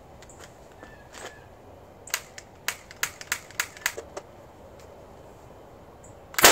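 A run of about seven sharp clicks as the homemade potato cannon is handled and readied. Near the end, the potato cannon fires a shot with a loud bang.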